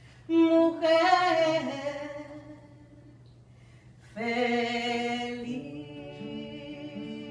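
A woman singing unaccompanied: a sung phrase, a short pause, then a second held note. About five and a half seconds in, a nylon-string acoustic guitar chord is played and left ringing, with a few low notes under it.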